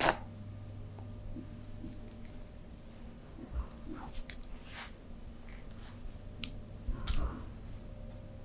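Massage hand sounds: skin rubbing and squishing with scattered small clicks, a sharp smack right at the start and dull thumps about three and a half and seven seconds in. A steady low hum runs underneath.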